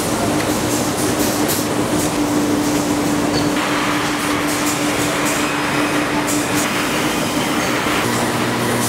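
Steady factory machinery noise with a constant hum and scattered clicks and clatter. It changes abruptly about three and a half seconds in and again near the end.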